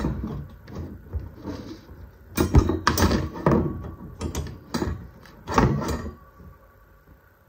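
Parts of a black metal wire rack knocking and rattling against each other as they are fitted together by hand. It is an irregular run of sharp clacks that dies away near the end.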